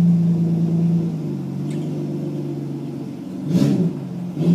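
Holden VN Commodore's engine running at a steady low note as the car pulls slowly forward; the note eases off about a second in. Two short thumps come near the end.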